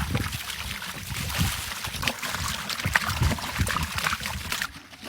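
Water trickling and splashing, with irregular soft knocks and thuds, quieter near the end.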